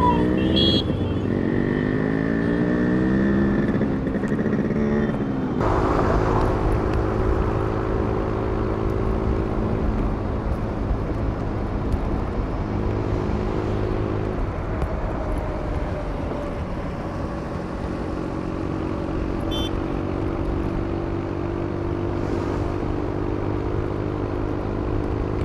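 KTM Duke 250's single-cylinder engine under the rider, pulling away with its pitch climbing through the revs. After an abrupt cut about five seconds in it runs at a steady cruise, with wind rush on the helmet-mounted microphone.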